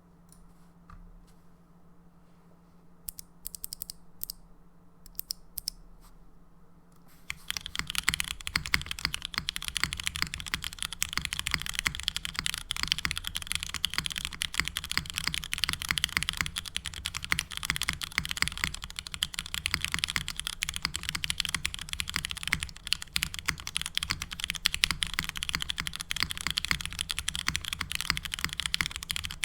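Custom 65% mechanical keyboard with lubed Cherry MX Black Hyperglide linear switches, a carbon fiber plate and a polycarbonate case being typed on. A few separate keystrokes come first, then about seven seconds in it breaks into fast continuous typing.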